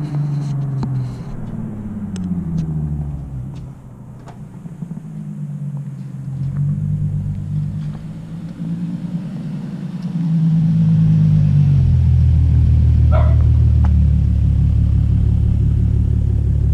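Car engine running, its pitch rising and falling, then a steady, louder low rumble from about ten seconds in.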